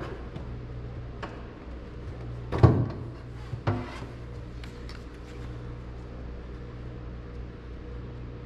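Several knocks and clunks, the loudest a little under three seconds in and a second one about a second later, as a Trans Am power antenna assembly is pushed and worked against the trunk body, refusing to go up into its mounting hole.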